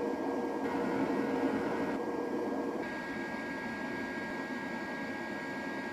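Steady fan noise with a thin, constant high whine, from the JASIC TIG 200 inverter welder's cooling fan running while the machine is switched on. A lower hum drops out and the sound shifts slightly about three seconds in.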